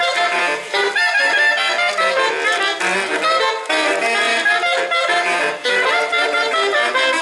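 Recorded instrumental dance music played over loudspeakers, a busy melody of pitched notes that carries on throughout.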